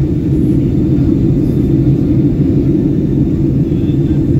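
Jet airliner cabin noise heard from a window seat: a loud, steady low rumble of the engines and rushing air.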